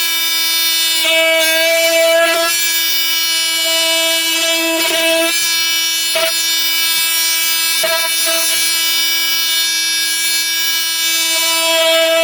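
Flex FX4111 cordless oscillating multi-tool running with a steady high hum while its blade cuts through meat. The tone swells and dips slightly as the load changes, with a few short knocks.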